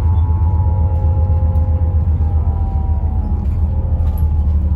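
Daewoo FX116 coach heard from inside the cabin while under way: a steady, loud low rumble of engine and road, with a faint whine above it that slowly falls in pitch.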